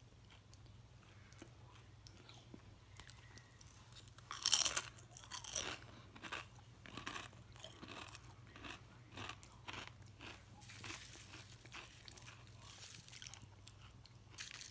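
Quest protein chips being bitten and chewed. After a few quiet seconds comes a loud crunch of a bite about four seconds in, then a run of crunching chews.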